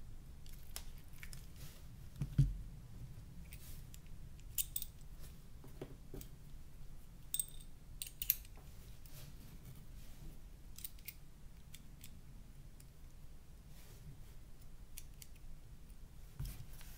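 Scattered small clicks and taps from the plastic and metal parts of a Nokia N91 phone being handled during disassembly, with a precision screwdriver in use. One louder knock comes a couple of seconds in.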